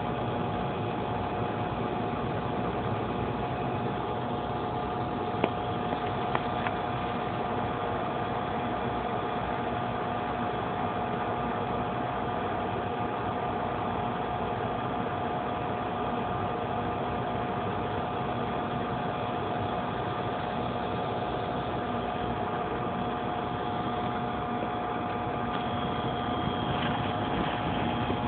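Steady mechanical hum with a constant whine from running hydroponic grow equipment, and a few faint clicks about five to six seconds in.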